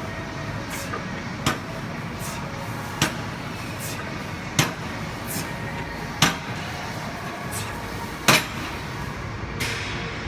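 Gym weights knocking together about once every second and a half, a set of lifting repetitions, over steady gym background noise.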